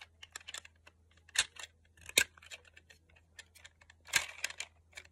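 Small plastic fidget toys being handled, giving irregular light clicks and taps with a few sharper knocks.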